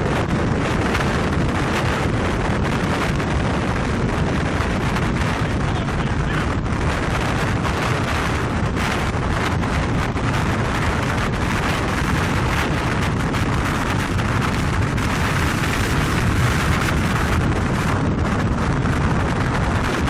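Strong wind buffeting the microphone: a loud, steady rush of noise with no let-up.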